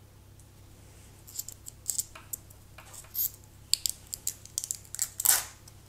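Thin protective plastic film being peeled off a wristwatch crystal, crinkling and crackling in a string of short irregular bursts, the loudest one near the end.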